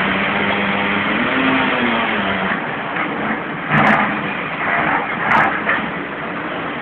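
Hydraulic excavator's diesel engine running under load, its note dropping about two and a half seconds in. Two short, louder bursts of noise come about four and five and a half seconds in.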